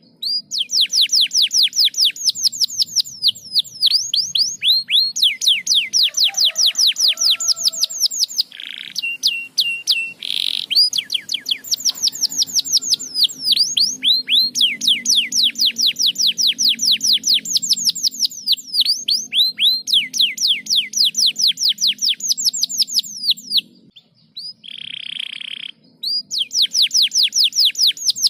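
Domestic canary singing long, fast trills of repeated downward-sweeping whistled notes, with a brief held note and a pause near the end before the trilling starts again.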